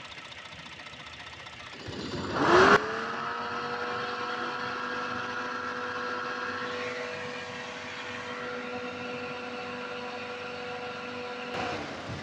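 Turbocharged Ford Explorer engine revved about two seconds in. Its pitch rises quickly, then holds at a steady higher speed with a steady whine, and it drops back near the end. The engine is logging a turbocharger underboost fault (P0299), which is traced to a turbo hose that has come off.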